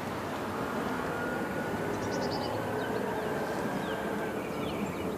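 Steady distant engine drone with a slowly shifting hum, and a few faint high bird chirps over it.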